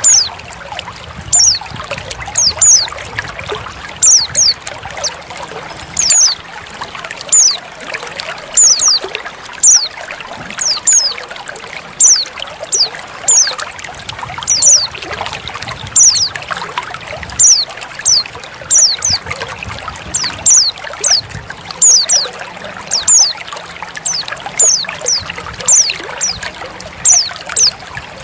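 Trickling water, with a female white-eye (pleci) calling over it in short, high, downward-sliding notes, about one or two a second and often in pairs. The calls are a lure to draw a male white-eye into song.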